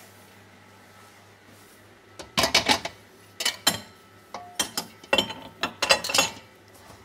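Metal clanking and clicking as a stainless steel bowl and dough hook are fitted onto a commercial planetary stand mixer: quiet at first, then a quick run of sharp knocks lasting about four seconds.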